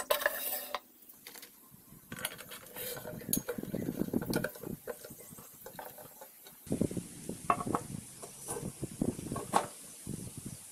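Metal drill press parts being handled and fitted: clinks and knocks, with scraping as the table bracket slides onto the steel column.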